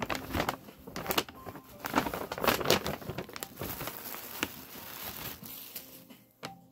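Tissue paper and a paper shopping bag rustling and crinkling as hands dig into the bag, in irregular bursts with sharp crackles, busiest about two to three seconds in and settling toward the end.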